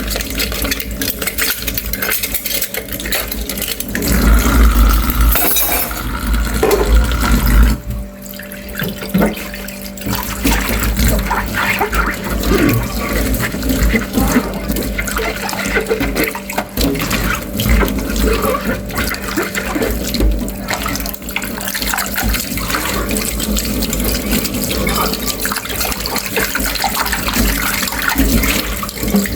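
Water running from a tap into a sink during dishwashing, with scattered small knocks, louder for a few seconds near the start.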